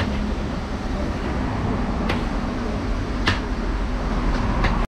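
Kitchen knife slicing tomatoes on a counter, the blade tapping the surface sharply three times, over a steady low rumble of background noise.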